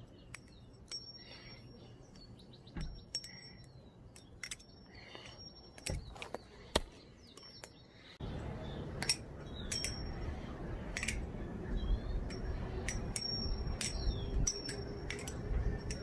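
A Channel Alpha Beast (CHAB) clone balisong being flipped: scattered sharp metallic clicks and clacks as the handles and blade swing open and shut, many with a short high ring. Faint bird chirps and a steadier background noise come in about halfway.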